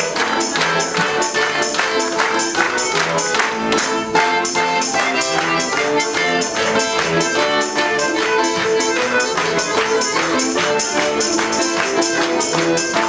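Lively music with a steady, quick percussive beat under a melody of held notes.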